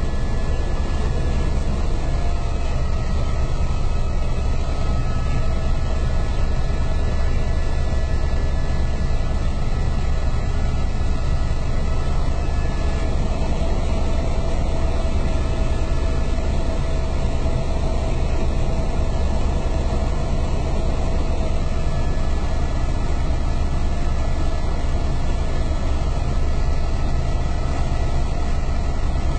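Helicopter engine and rotor noise heard from inside the cabin in flight: a steady low rumble with a faint, even whine over it.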